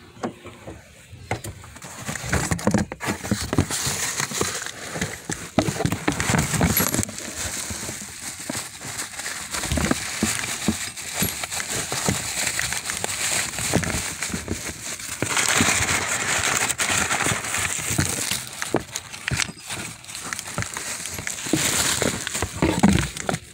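Bubble-wrap packaging crinkling and crackling as a new water pump is unwrapped from its box. The crackling is continuous and irregular, loudest in a stretch a little past the middle.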